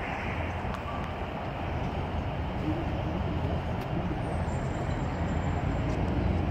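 Crowd of spectators in a large hall talking among themselves: a steady din of many voices with no single voice standing out.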